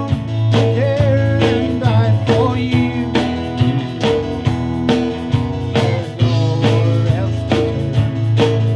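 Live gospel song: a man singing while strumming an acoustic guitar, backed by bass and a drum kit keeping a steady beat.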